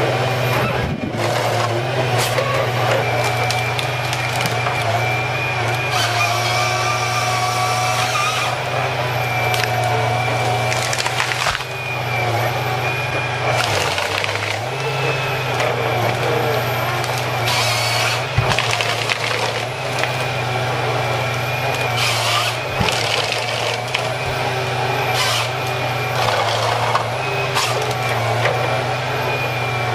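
Heavy tree-felling machinery running steadily with a low drone and a high whine. Wood cracks and splinters sharply several times.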